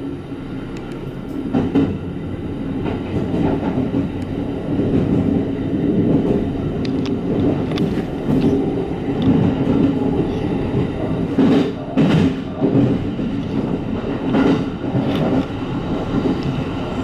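Kintetsu 21020 series Urban Liner Next limited express running noise, heard from inside the front of the train as it pulls away from a station. A steady rumble is broken by sharp wheel clicks, several close together, as the wheels cross points and rail joints.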